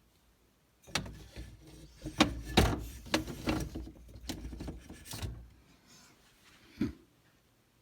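Handling noises: a run of knocks, clicks and rubbing for about four seconds, then one sharp click near the end.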